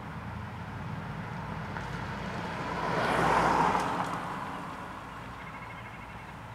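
A road vehicle passing by: the sound swells to its loudest about three seconds in and then fades away, over a steady low hum.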